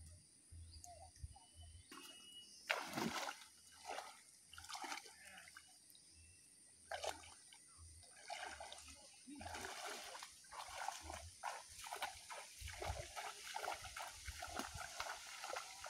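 Shallow muddy swamp water splashing and sloshing as people wade through it and plunge their arms in, hand-fishing. A few sharp separate splashes in the first half give way to steadier sloshing from about ten seconds in.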